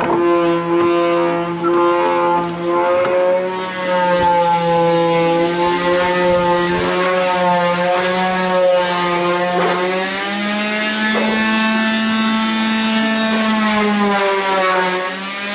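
An electric power tool's motor runs with a loud, steady hum. Its pitch sags a few times as it is worked and then recovers. Right at the end it winds down.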